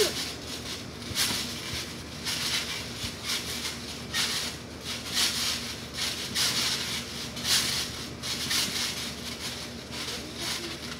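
Children bouncing on a backyard trampoline: a soft hiss of mat and springs that swells and fades about once a second with the jumps, over a faint steady hum.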